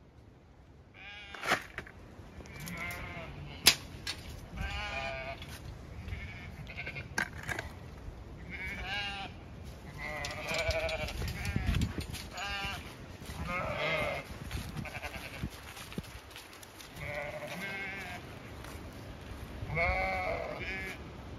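A flock of Zwartbles sheep bleating over and over, many wavering calls overlapping and answering each other, as the sheep gather for their feed. Two sharp clicks stand out, about a second and a half and nearly four seconds in.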